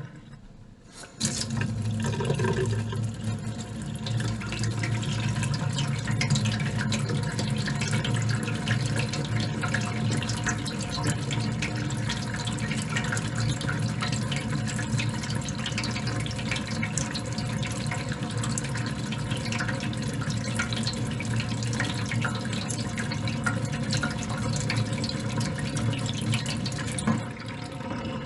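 Water from a tap running into a stainless steel sink. It starts suddenly about a second in and runs steadily. Near the end the flow cuts and a quieter sound of water draining from the sink carries on.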